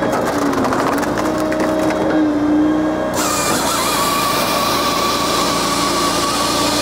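Japa 395 firewood processor running steadily on tractor-PTO hydraulics, with cracking and splintering of ash wood in the first second or so. About three seconds in, its saw starts cutting through an ash log with a loud hiss and a steady high whine.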